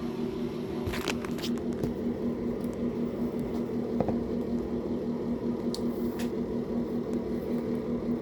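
Short wet sniffs through a congested, runny nose: a cluster about a second in and two more around six seconds in, over a steady low hum.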